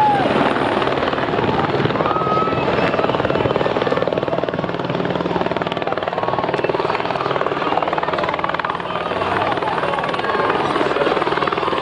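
Light turbine helicopter running steadily with a constant rotor chop as it hovers low over a grass field and settles down to land.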